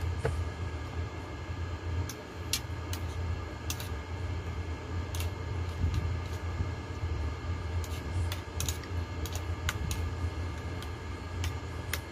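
Spoon clinking against a bowl of noodle soup during eating: about a dozen light, sharp clicks at irregular moments over a steady low hum.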